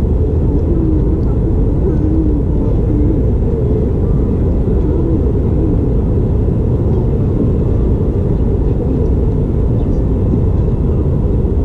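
Steady low rumble with faint distant voices over it.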